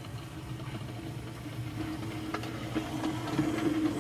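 Hornby OO gauge Class K1 2-6-0 model locomotive running along the track: a steady electric motor hum that grows louder toward the end, with a few light clicks from the wheels on the rails.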